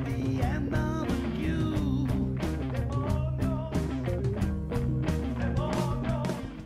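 Rock music with a steady, fast beat, cutting off suddenly at the end.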